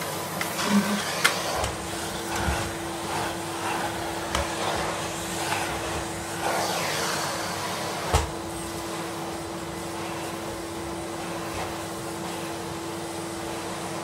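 A 1985 cylinder vacuum cleaner running with a steady motor hum. For the first half its floor tool is pushed over carpet, with shifting suction noise and a few knocks. A sharp knock comes about eight seconds in, and after it the machine runs on steadily.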